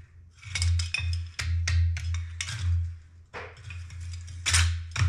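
Background music with a percussive beat over a low bass line.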